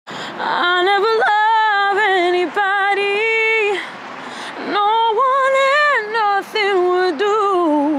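A woman singing solo without accompaniment: long held notes with vibrato and quick melodic runs, with a short breath pause about four seconds in.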